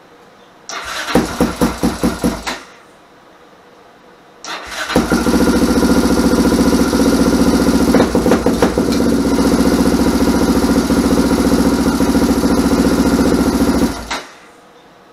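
Freshly rebuilt Yamaha Raptor 660 ATV's big-bore 686 single-cylinder four-stroke engine being started for its first run after the rebuild: a short pulsing try of under two seconds that stops, then a second try about four and a half seconds in that catches and idles steadily for about nine seconds before cutting off suddenly.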